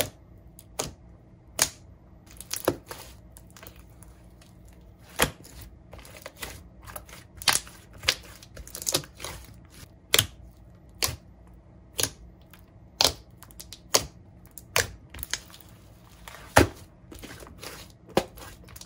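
Large pink glitter slime being poked and squeezed by hand, giving irregular sharp clicks and pops about every half second to second.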